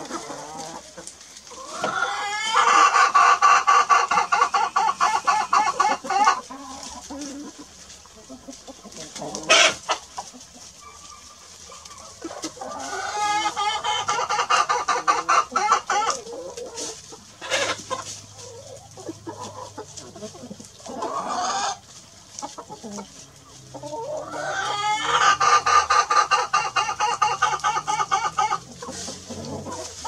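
A rooster crowing three times, about ten seconds apart, each crow a long call that rises at the start. Hens cluck in the gaps between crows.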